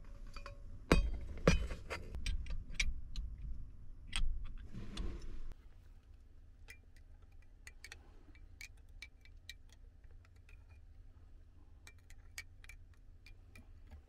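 Hard objects being handled: two sharp knocks, a run of clicks and a short rustle, then sparse light clinks and ticks over a faint steady hum.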